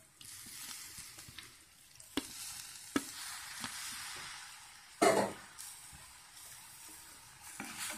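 Morassu fish pieces sizzling as they go into hot coconut-and-spice mixture in a clay pot, with a few knocks of a wooden spatula against the pot, the loudest about five seconds in.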